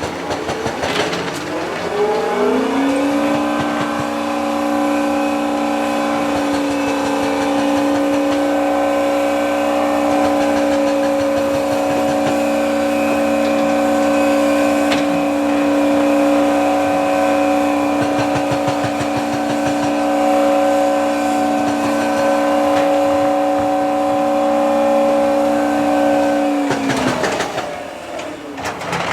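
Heavy construction machine's diesel engine revving up about two seconds in, holding a steady high pitch, and winding back down near the end, with a clatter underneath.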